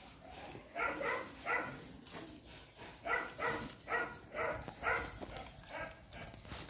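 A dog barking in two runs of short barks, about three and then about five, spaced roughly half a second apart.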